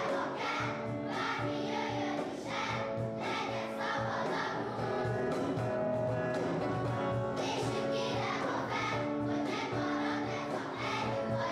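Children's choir singing a song together, with a steady beat underneath.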